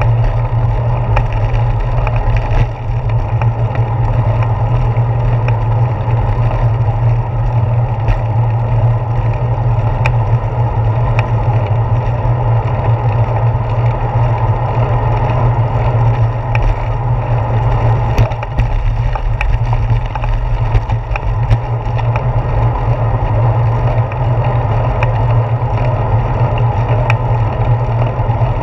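Steady wind and road noise from a bicycle in motion, picked up by a handlebar-mounted GoPro Hero 4 action camera, with scattered small clicks and rattles from bumps in the paved path.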